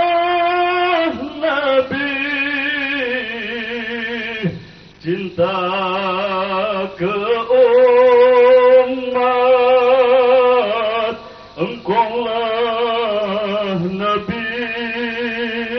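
A man chanting a dzikir solo into a microphone over a PA, in long drawn-out phrases of held, wavering notes with short breaks for breath.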